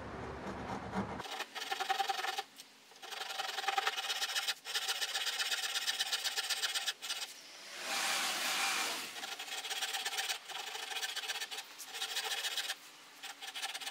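Japanese ryoba pull saw crosscutting the shoulder of a tenon in a wooden block: a rapid run of rasping saw strokes that starts about a second in, broken by a few short pauses.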